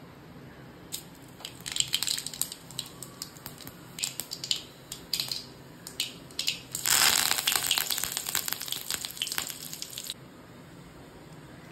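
Mustard seeds spluttering in hot oil in a kadai, sharp irregular pops for a few seconds; then curry leaves go into the oil with a loud, dense sizzle and crackle that stops abruptly near the end. This is the tempering stage of a South Indian chutney.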